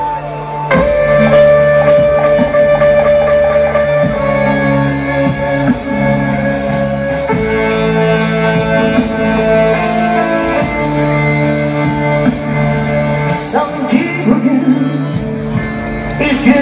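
Live band music played through a concert PA, with a steady beat.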